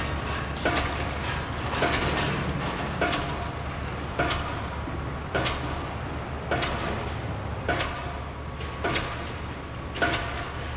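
Horror-film sound design: a low steady hum with a sharp hit that repeats evenly, about once every second and a bit, each hit sweeping quickly down in pitch.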